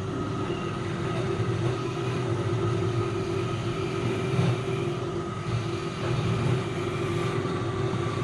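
Wood lathe running steadily, a constant motor drone with a steady hum.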